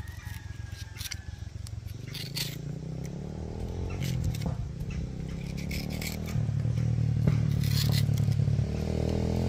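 Repeated scraping and short clicks of a knife working through a mango, over a low engine drone that grows steadily louder and rises in pitch.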